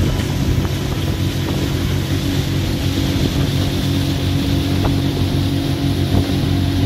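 Boat's outboard motor running steadily at speed, with wind buffeting the microphone.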